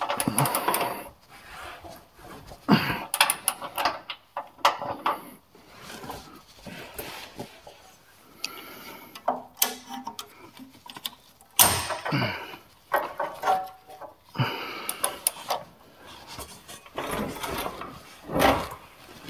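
Socket ratchet wrench clicking in short runs while bolts are worked under a vehicle, mixed with irregular clanks, scrapes and rustles of tools and metal parts being handled.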